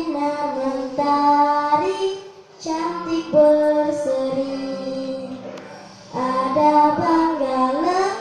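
A girl singing solo into a handheld microphone: three long melodic phrases of held notes with short breaths between them, a little under two seconds and about six seconds in.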